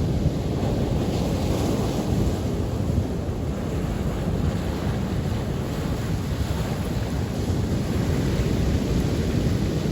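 Ocean waves breaking on a beach, a continuous rush of surf that swells gently a little after the start and again near the end, with wind buffeting the microphone underneath.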